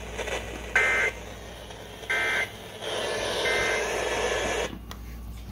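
Three short, evenly spaced bursts of EAS/SAME two-tone data warble over radio hiss. This is the end-of-message code that closes a weather warning broadcast.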